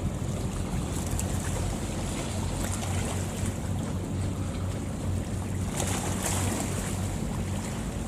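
A fishing boat's engine running steadily with a low hum, under a wash of water and wind on the microphone. There is a brief louder rush about six seconds in.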